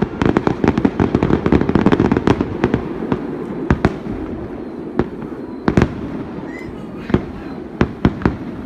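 Fireworks exploding: a dense, rapid run of crackling bangs for about the first three seconds, thinning to scattered single sharp bangs.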